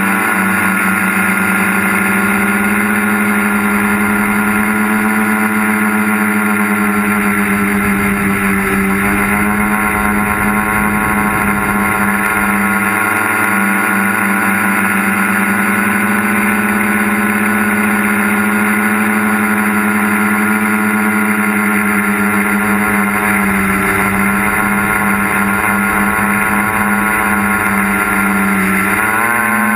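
Tricopter's electric motors and propellers running steadily in a hover, picked up by the onboard camera, a constant hum whose pitch dips and rises slightly a few times as the craft yaws and corrects its position. Low wind rumble buffets the microphone now and then.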